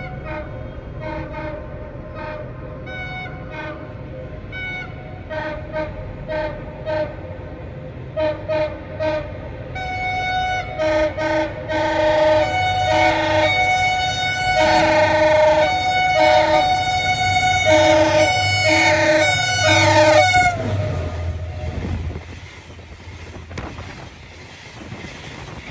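Diesel locomotive horn sounded in a long series of short, chord-like blasts that grow louder as the train approaches, its pitch dropping as the locomotive passes about twenty seconds in. The engine rumbles past, and then the passenger coaches roll by with quieter wheel clatter.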